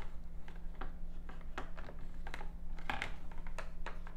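Irregular light clicks and taps as the plastic pan tool of an Easy-Bake oven grips and knocks against the small baking pan holding freshly baked cakes, over a steady low hum.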